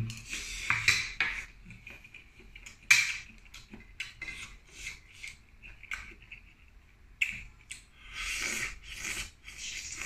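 Close-up eating sounds: slurping and sucking mussel meat and broth from the shells, with clicks of shell and cutlery, the loudest click about three seconds in and a longer stretch of sucking near the end.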